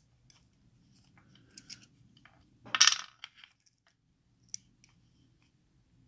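Small metal clicks and clinks from a Master padlock and its parts being handled while its core is taken out. A brief louder rattle comes about three seconds in, and a single sharp tick follows a little later.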